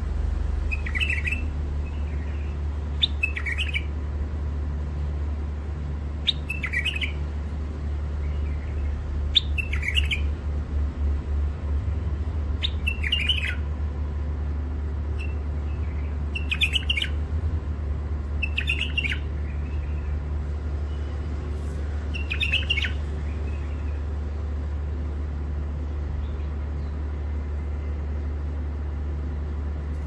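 Caged white-eared bulbul giving short, sharp calls, about eight of them a few seconds apart, falling silent for the last several seconds, over a steady low hum.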